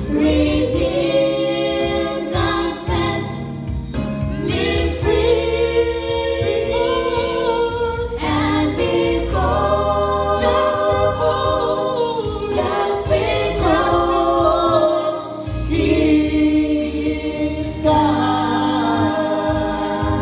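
A small group of girls singing a gospel song together into microphones, in sustained phrases of a few seconds each.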